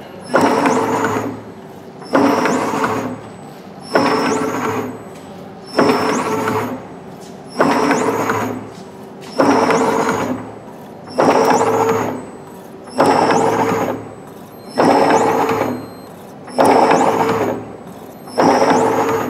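Automatic rosary chain machine running through its working cycle: a burst of mechanical whirring that starts suddenly with a short rising whine and then dies away, repeating about every 1.8 seconds.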